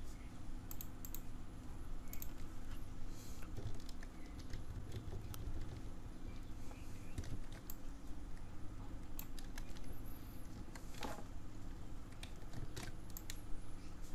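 Computer keyboard keys and mouse buttons clicking irregularly, a few scattered presses at a time, over a steady low hum.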